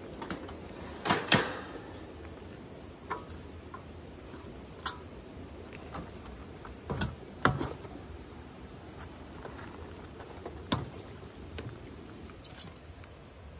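Scattered clicks and knocks of plastic and metal being handled while a kerosene heater is opened for refuelling and a plastic fuel can's spout is set into its filler. The louder knocks come about a second in, around seven seconds, and near eleven seconds.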